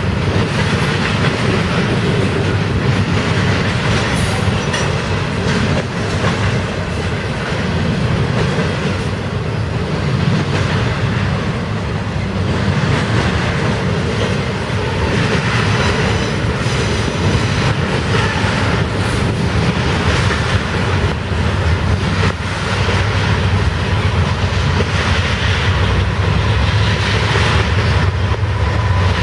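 Canadian Pacific freight train of double-stacked intermodal containers rolling past, a steady loud rumble and clatter of steel wheels on the rails.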